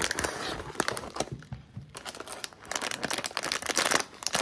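Foil snack pouch crinkling as hands pull it from a cardboard box and work at its sealed top, with a short lull in the middle.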